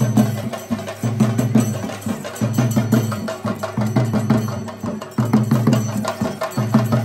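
Chenda drums played in fast, dense strokes, in phrases of about a second with short gaps between them.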